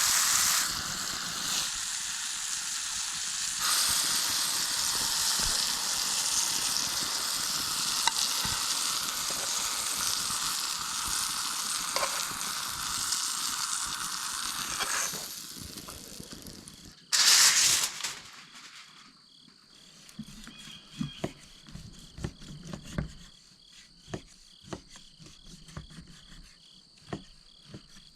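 Steak sizzling steadily over a campfire for about the first fifteen seconds, then fading. After a brief loud burst, the sound drops to a quieter background of crickets chirring, with scattered sharp pops.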